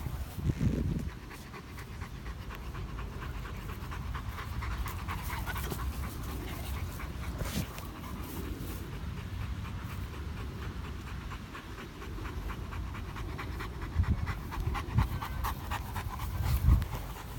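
A large dog panting rapidly and steadily, right up close, cooling itself on a hot day. There are a few low bumps near the end.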